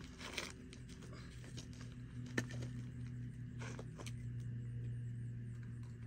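Tape measure and pencil being handled on a wooden board: a few small clicks and scrapes, the sharpest about two and a half seconds in, over a steady low hum.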